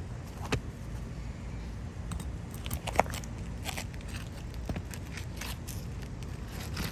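Brittle old asphalt shingles being worked loose by hand and tool, with scattered crackles, scrapes and clicks and one sharp snap about three seconds in. A steady low rumble runs underneath.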